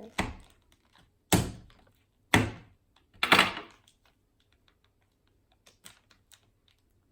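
Plastic slime packaging being handled and knocked against a hard surface: four sharp thunks about a second apart, then a few faint ticks.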